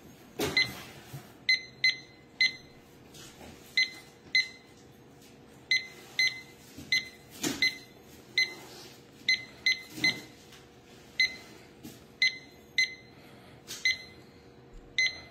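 DecorStar four-probe wireless meat thermometer receiver beeping at each button press as its settings are stepped through. About two dozen short, high beeps come singly or in quick pairs at uneven intervals, with a few faint clicks of handling.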